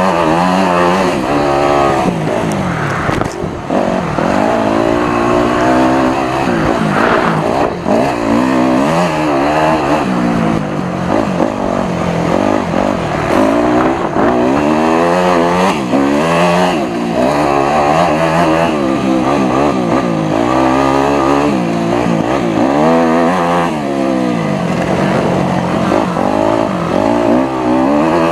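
Dirt bike engine under hard riding on a motocross track, revving up and dropping off again and again as the rider accelerates, shifts and rolls off over the jumps and corners.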